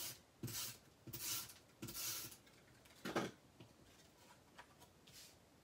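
Soft rustling and rubbing of craft materials being handled: a heart-shaped adhesive foam piece with its paper backing moved and pressed by hand on a craft mat. A handful of short brushing sounds in the first half, then a couple of fainter ones.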